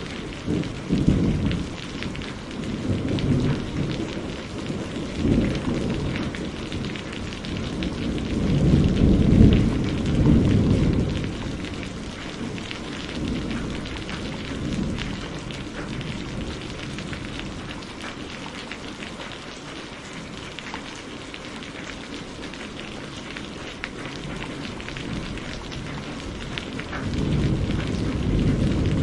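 Steady heavy rain with rolling thunder. The rumbles come and go, the loudest about a third of the way in, and the thunder dies down to rain alone for a while before building again near the end.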